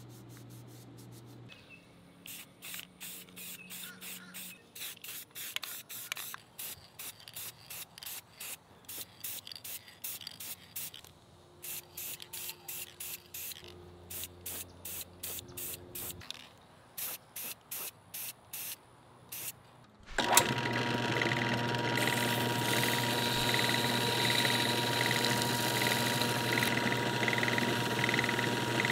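Aerosol spray-paint can sprayed in many short bursts of hiss, laying gloss black paint on the cast head of a combination square. About twenty seconds in, a small lathe starts and runs steadily while a sanding sponge is pressed against the small steel part spinning in its chuck.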